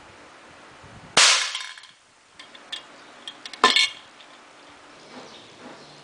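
A homemade airgun pistol fires once about a second in, a sharp crack with a short ring after it, at a small tin can at close range. A few small clicks follow, then a second sharp metallic knock near the middle.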